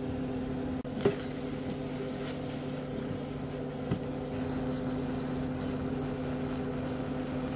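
Steady electric kitchen-appliance hum made of a few steady low tones, over a pot of apple filling cooking on low heat. Brief knocks near the start, about a second in and again about four seconds in.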